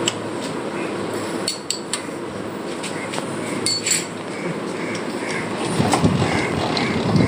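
Large metal-turning lathe running with a steady mechanical hum, with sharp metallic clinks and knocks as steel tools are handled at the carriage and tool post, several of them in the first four seconds.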